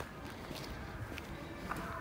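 Footsteps walking on rough concrete, over a low rumble.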